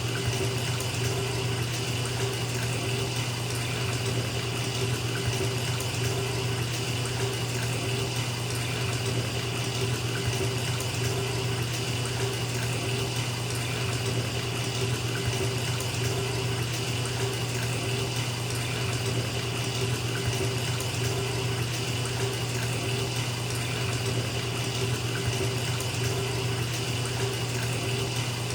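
Bathtub tap running into a filling tub: a steady, unbroken stream of water with a constant low hum in it.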